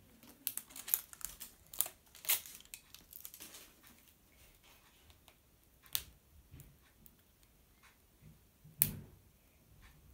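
Crinkling and tearing of a toy's wrapper being picked open by hand, with quick sharp clicks and crackles. The crackles come thick in the first few seconds, then thin out to a few louder clicks and taps about six and nine seconds in.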